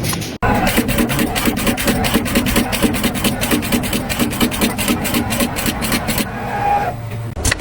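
Production machinery running with a rapid, even clatter of several strikes a second, changing to a smoother sound about six seconds in.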